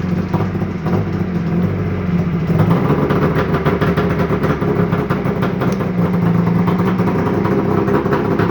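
1995 Arctic Cat ZRT 800 snowmobile's three-cylinder two-stroke engine running steadily near idle on its freshly synced and tuned carburettors, its sound growing busier about two and a half seconds in.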